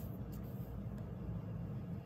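Steady low background hum, with a few faint rustles of paper and tape as fingers press washi tape down onto a notebook page.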